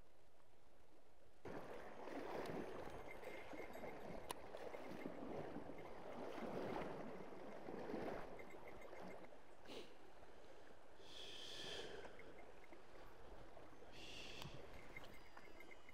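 River water sloshing and splashing close by, in uneven surges, as a wading angler moves through shallow current. It starts suddenly about a second and a half in.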